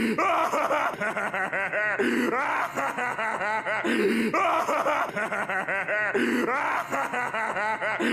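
Plankton's laugh from the SpongeBob SquarePants cartoon: a rapid run of short, chopped cartoon-voice laughs, looped so the same laugh restarts about every two seconds, roughly four times over.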